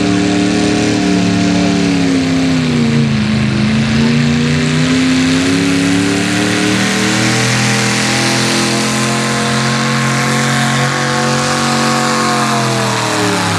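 Hot-rod V-8 pulling tractor engine running at high revs under load, dragging the weight-transfer sled. Its pitch sags about three seconds in, climbs back and holds, then winds down near the end.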